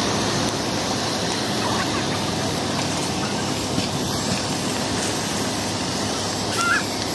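Steady rushing noise at a house fire being fought with hoses, with a brief faint chirp near the end.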